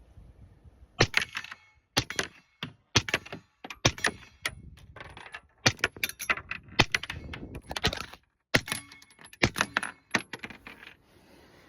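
Suppressed 9mm pistol shots, a SIG P365 Fuse with an Obsidian 45 suppressor firing 147-grain subsonic handloads: a string of about ten shots, roughly one a second, several followed by a thin metallic ring of steel targets being hit.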